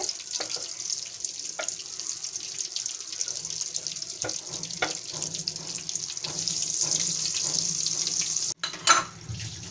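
Round eggplant slices coated in wet spice paste sizzling in hot oil in a frying pan, with a steady hiss and scattered small pops. A brief louder knock near the end.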